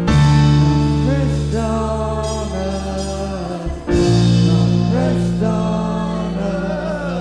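Live worship band playing a slow song with a voice singing over it: a held low chord that changes to a new one about four seconds in.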